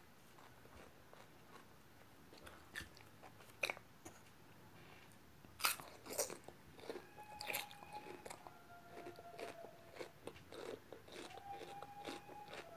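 Crunchy biting and chewing of food close to the microphone, in scattered sharp crunches that are loudest a little before halfway. Faint held tones of shifting pitch come in over the second half.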